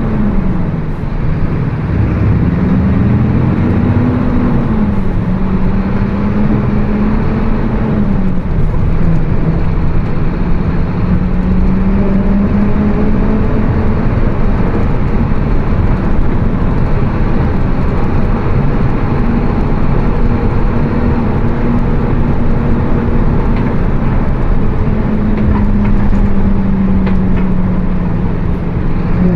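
Mercedes-Benz OF 1724 BlueTec 5 bus on the move, its differential droning loudly. The hum rises and falls a couple of times in the first eight seconds, then holds nearly steady over road and engine noise.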